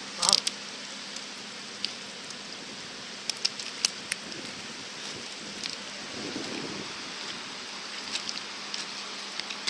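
Steady rush of a swollen river running high after a typhoon, with scattered small ticks and splashes.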